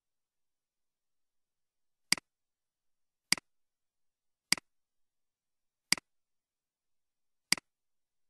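Five computer mouse button clicks, about a second apart, each a sharp tick followed at once by a softer second tick from the button's press and release.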